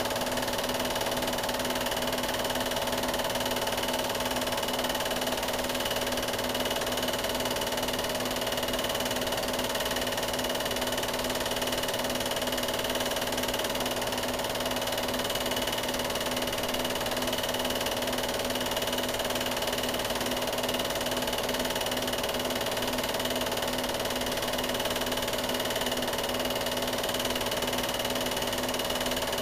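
Steady mechanical whir and hum over a hiss, with no change. Nothing on the track comes from the canoes or the water.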